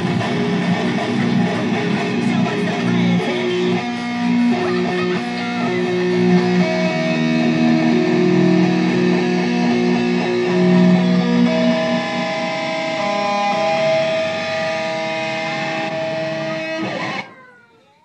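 Electric guitar music played loud through a guitar amplifier, with long sustained notes; it cuts off suddenly near the end.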